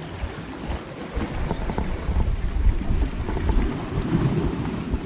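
Wind buffeting the microphone in uneven gusts, over the steady wash of the sea along a rocky shore.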